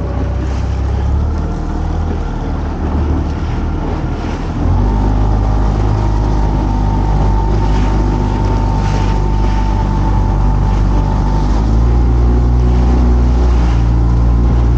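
A small fishing boat's engine running under way, opening up about five seconds in and again a few seconds later, with water splashing along the hull as the boat gathers speed.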